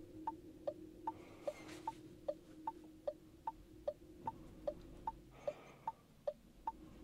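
Turn-signal indicator of a Renault Megane E-Tech Electric ticking in the cabin: an even tick-tock, alternating higher and lower clicks at about two and a half a second, switched on by the car's automatic parking assistant during a parallel-parking manoeuvre. A faint steady hum sits underneath and fades about four seconds in.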